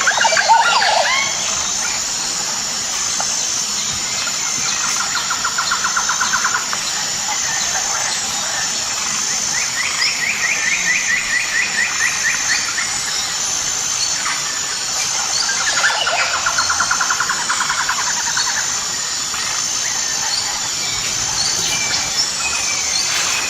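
Tropical jungle ambience: a steady high shrill drone that pulses every second or so, with birds calling over it. Near the start a few quick falling calls, then three rapid trills, each a couple of seconds long and each at a different pitch.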